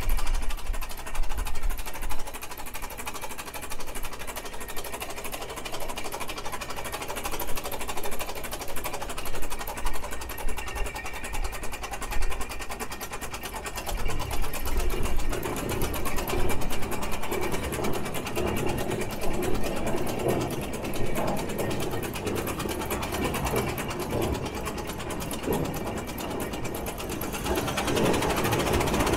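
Big 4-30 prairie tractor engine running with a rapid, even mechanical clatter, growing somewhat louder about halfway through.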